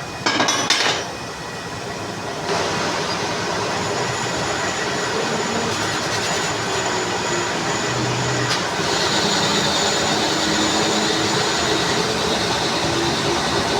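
Metal lathe running and cutting a flange, a steady mechanical rushing noise. A few knocks come at the start, and the noise grows louder about two and a half seconds in.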